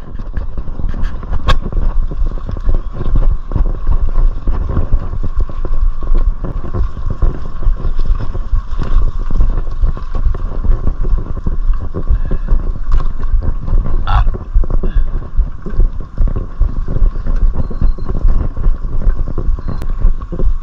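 Mountain bike riding over rough trail: wind buffeting the microphone as a continuous low rumble, with a steady run of rattles and knocks from the bike over the ground.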